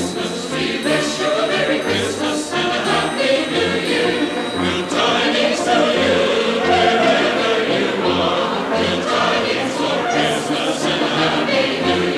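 Choral music: a choir singing with instrumental accompaniment and a steady bass pulse.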